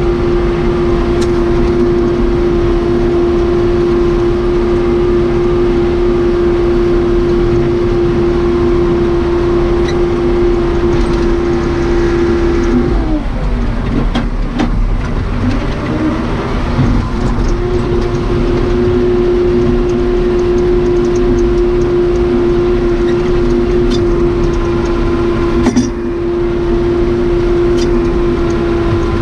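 Case 580 Super K backhoe's Cummins 4BT four-cylinder diesel running at steady high revs with a droning tone. About halfway through, the revs drop and waver for a few seconds before climbing back to a steady drone.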